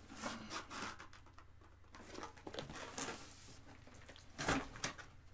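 Cardboard shipping box being worked open by hand: scattered rustling and scraping of cardboard and packing, with a louder bump about four and a half seconds in.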